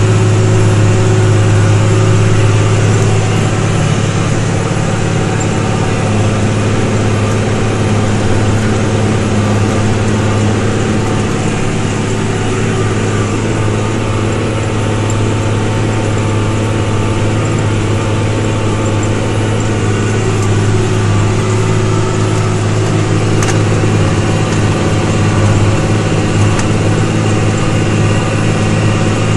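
New Holland TG285 tractor's diesel engine running steadily under load while pulling a four-furrow plough, heard from inside the cab as a loud, even drone with a strong low hum.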